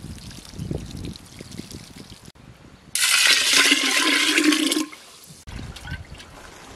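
Water poured from a clay pot, splashing softly over hands and onto the ground. About three seconds in, a much louder stream of water pours into the mouth of the earthen pot for nearly two seconds, starting and stopping abruptly.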